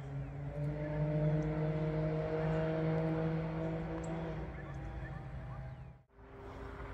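Can-Am Ryker 900's Rotax three-cylinder engine through an RLS Echo Series exhaust with no baffle, pulling under throttle: a steady drone that rises a little in pitch, then fades off. It drops out sharply about six seconds in, and a different, higher steady hum follows.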